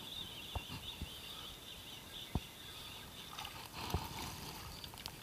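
Water lapping against the side of a small fishing boat, with four short light knocks spread through it.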